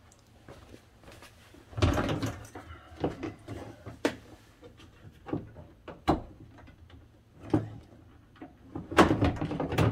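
Clicks, knocks and rattles of a Jeep Grand Cherokee rear door latch and its linkage being worked by hand inside the door, with louder clattering bursts about two seconds in and near the end.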